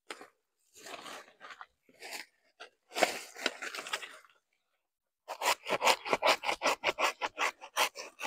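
Dry banana leaves and leaf sheaths crackling, rustling and tearing as they are pulled and cut away at the base of the plant, in irregular bursts. About five seconds in, a fast run of short rasping strokes, about six a second, begins.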